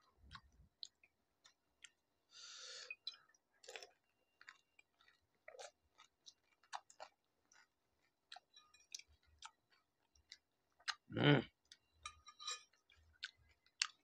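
Crisp fried pani puri shells cracking and crunching as they are broken open with fingers and chewed, a scatter of sharp clicks through the whole stretch. One louder, fuller mouth sound comes about 11 seconds in.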